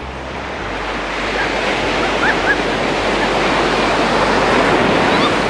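Sea surf on a sandy beach: the rush of waves breaking and washing up the shore, swelling steadily louder toward the end. Two short high chirps cut through about two seconds in.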